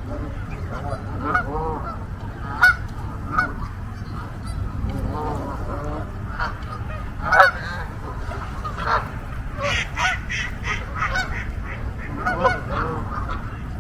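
A large flock of geese honking, many short calls overlapping and following one another in quick succession.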